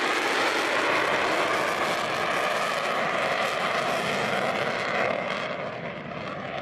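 Steady jet noise of an F-22 Raptor fighter in flight: an even rush with no distinct tone, dying down in the last second or so.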